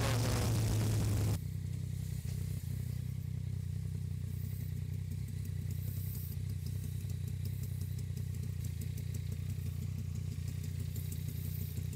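Yamaha Tracer 900 GT's three-cylinder engine idling steadily at a standstill. Rushing wind noise cuts away about a second in, leaving the low idle with faint scattered ticks.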